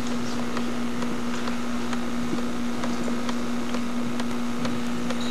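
Steady low hum with a constant hiss, dotted with faint scattered ticks.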